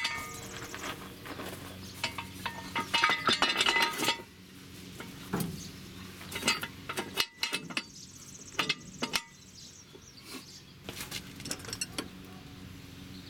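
Steel jack stand being set and adjusted under a truck's rear axle: a run of sharp metallic clinks and rattles, busiest about three seconds in and again near the middle.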